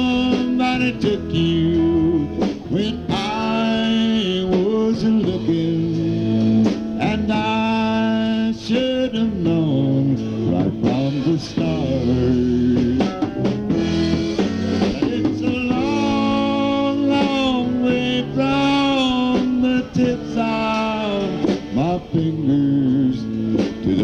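Live country band playing a slow song, with guitar and drums and a singing voice over it; many of the notes slide and bend.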